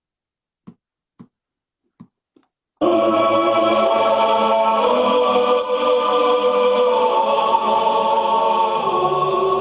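A few faint clicks, then about three seconds in, loud music starts abruptly: sustained, choir-like voices holding chords.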